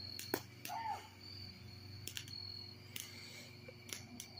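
Crickets chirping faintly, with a few short, sharp clicks scattered through.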